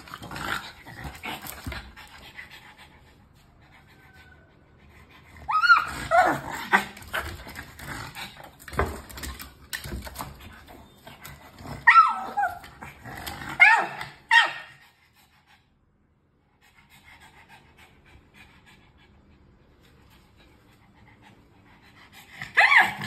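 A pug panting noisily and whining, with a few bursts of high, wavering whimpers through the first two thirds, then a quieter stretch. It whines while straining on its hind legs toward food that is out of reach.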